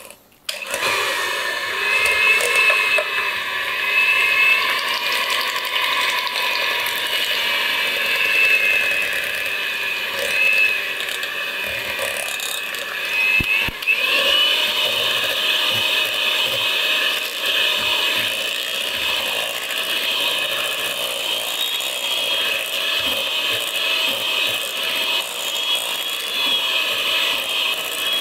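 Electric hand mixer running at a steady whine, its two beaters whisking thick cream cheese in a glass bowl with a rattling, scraping texture. It starts after a brief silence at the very start.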